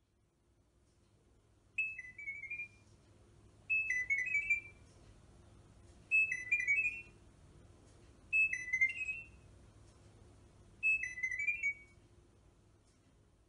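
Chirp data-over-sound signals played from a smartphone: five short chirps of rapid, stepping high-pitched beeps, each about a second long and a couple of seconds apart. Each chirp encodes a command to the Philips Hue smart lights.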